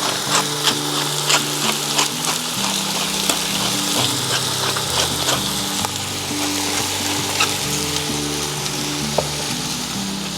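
Chicken pieces sizzling as they brown in hot oil with onion and ginger, with frequent sharp pops of spattering oil, thickest in the first few seconds and thinning out later.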